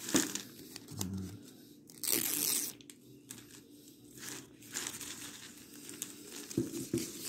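Plastic gift ribbon crinkling and rustling as hands fold and tie loops of it, with a louder rustle lasting about half a second around two seconds in.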